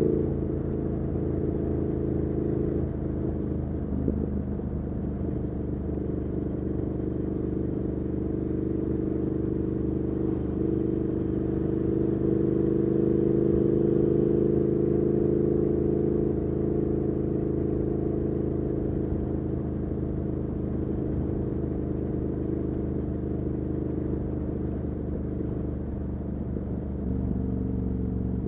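2019 Triumph Speed Twin 1200's parallel-twin engine running through a Weslake Shorty Pro exhaust, heard from the bike while riding. It eases off at the start, then cruises at fairly steady revs, rising a little midway.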